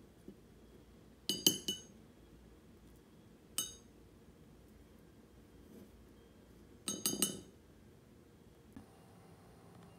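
Chopsticks clinking against a porcelain teacup while tossing candied orange peel strips in sugar: a quick run of three clinks about a second in, a single clink midway, and another quick run of clinks around seven seconds.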